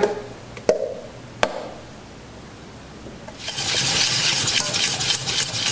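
Two sharp clicks of a utensil against a stainless steel saucepan, then, from about three and a half seconds in, a steady scraping as a spoon stirs a thick butter-and-flour paste (a roux) in the pan.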